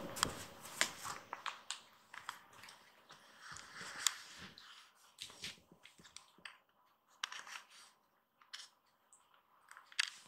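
Faint rustling and scattered small irregular clicks from a tiny kitten crawling and shifting on a fleece blanket.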